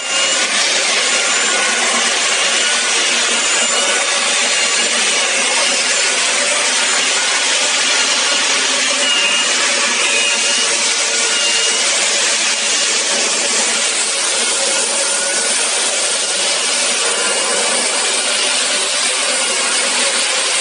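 Portable line boring machine cutting a steel pin bore in an excavator bucket: a steady, harsh rasping noise with faint, short high squeals now and then.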